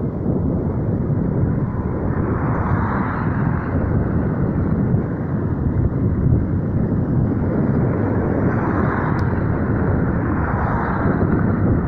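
Steady wind rush over the microphone of a bicycle freewheeling along an asphalt road, swelling a little at times.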